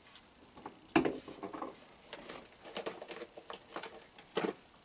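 Scattered light clicks and taps of raccoon feeding: food being handled in a plastic tub and raccoons eating on a wooden deck, with a sharper click about a second in and another near the end.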